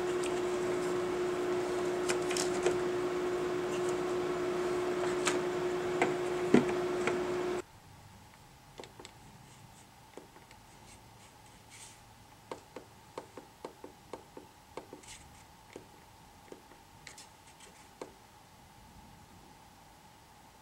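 A steady hum at one pitch over a hiss, which cuts off suddenly about seven and a half seconds in. After that come a run of small clicks, several a second at times: the buttons of a Penn A421 digital temperature controller being pressed repeatedly.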